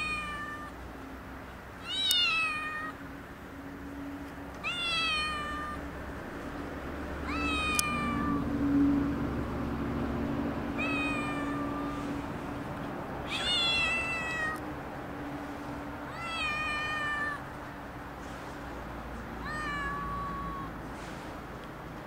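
A young domestic cat meowing repeatedly, about seven short meows spaced two to three seconds apart, each rising quickly and then sliding down in pitch.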